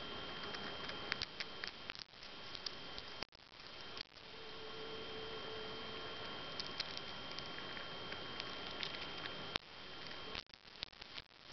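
Chipmunk cracking and chewing sunflower seed shells: clusters of small sharp clicks and crunches come and go several times, over a steady hiss with a thin high tone.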